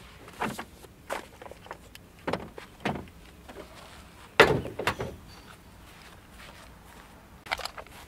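A few light clunks of hard plastic levelling blocks being lifted out. Then a Tesla's front trunk lid is pushed shut with one solid slam about four and a half seconds in, the loudest sound, followed by small knocks and footsteps near the end.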